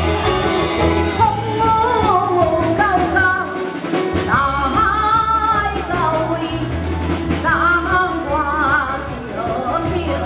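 A singer performing a Taiwanese opera (gezaixi) aria through a microphone over instrumental accompaniment with a steady low beat. The wavering sung melody comes in about a second in.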